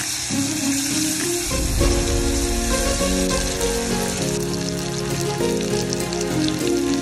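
Chopped onions and cashews sizzling in hot oil in a pot. The sizzle is strongest at first and eases off after about halfway.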